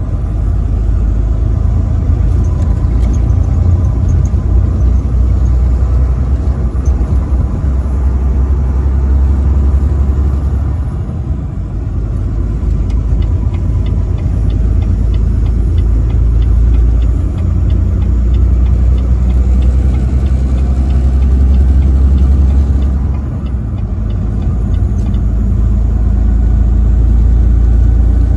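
Semi truck driving on a highway: a steady, loud low rumble of engine and road noise, easing briefly twice, with a faint regular ticking through the middle stretch.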